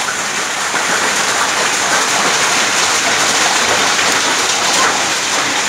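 Heavy rain falling steadily, a dense even hiss of drops hitting wet ground and puddles.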